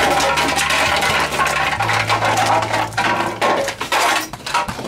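Hard plastic toy dinosaurs and a plastic toy jeep clattering and knocking together as they are shoved and toppled, a fast, dense run of clicks and rattles over a steady low hum.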